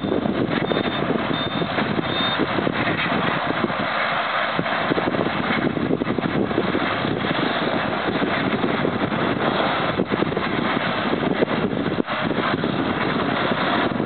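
John Deere 6420 tractor engine running steadily as it pulls a two-rotor hay rake.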